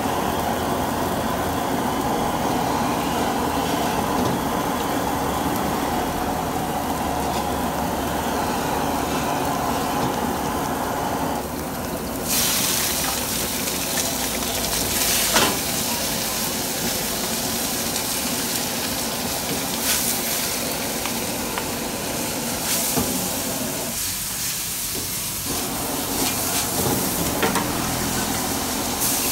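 Food frying in a wok over a gas burner, with the burner's steady rush underneath. About twelve seconds in, a loud sizzling hiss starts suddenly as the wok begins to steam, and the metal ladle clanks against the wok a few times.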